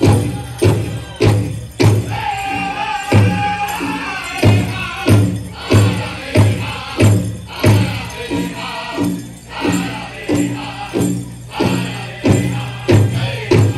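Powwow drum group playing a chicken dance song: a big drum struck in a steady beat, a little under two strokes a second, under high-pitched group singing. Soon after the start the drumbeat eases off for about two seconds while the singers hold a high line, then comes back in.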